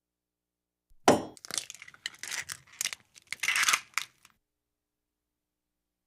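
An egg being broken: a sharp crack of the shell about a second in, followed by about three seconds of irregular crackling and crunching as it breaks apart.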